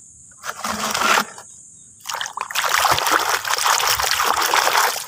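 Water splashing and trickling as a toy is washed: a short splash about half a second in, then steady splashing from about two seconds in that stops just before the end.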